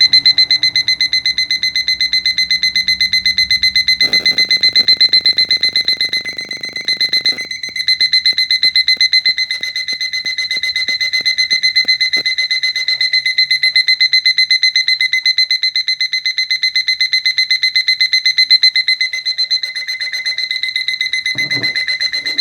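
Digital alarm clock's speaker sounding its full alarm: a rapid, even run of high-pitched beeps that keeps going and cuts off at the very end.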